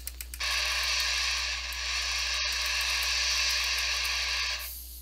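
Radio static hiss from a receiver tuned to the CB band. It starts abruptly about half a second in, breaks off for an instant midway and cuts off sharply near the end, over a low steady hum.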